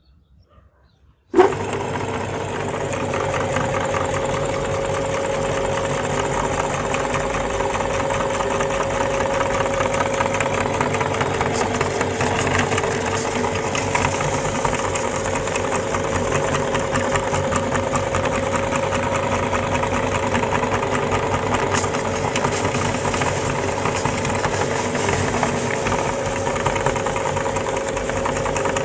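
Belt-driven meat grinder with a large flywheel pulley, motor-powered, starting suddenly about a second in and then running steadily with a constant mechanical hum as it grinds biscuits into crumbs.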